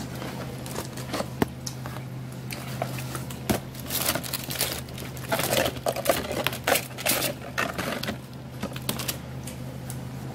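Cardboard takeout pizza and wing boxes being handled and shifted on a table: irregular rustles, scrapes and light taps, busiest in the middle, over a steady low hum.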